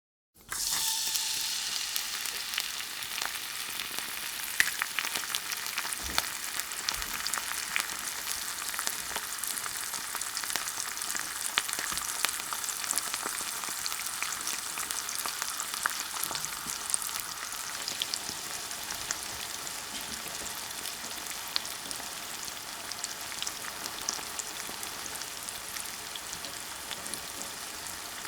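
Food sizzling in a hot frying pan: a dense, steady hiss with frequent crackles and pops. It starts about half a second in and eases off slightly toward the end.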